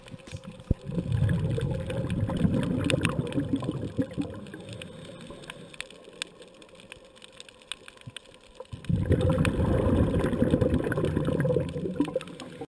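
Scuba diver's exhaled bubbles rushing from the regulator, heard underwater: two exhalations, one starting about a second in and another near nine seconds, with a quieter gap between them and scattered faint clicks.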